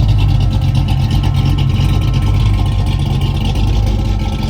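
Fox body Mustang's 5.0 V8 engine idling steadily.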